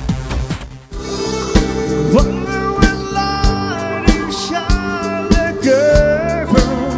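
Live band music: a dance track with a steady beat cuts off just before a second in, then drums and guitar start and a man sings into a microphone.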